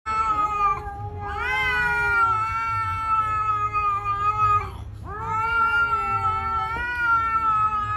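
A grey kitten yowling at another cat: a short call, then two long drawn-out wavering calls of about three and a half seconds each, with a brief pause between.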